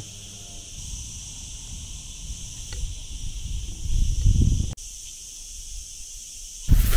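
Steady high-pitched chorus of insects in summer woodland, with a low rumble underneath that swells about four seconds in and comes back louder just before the end.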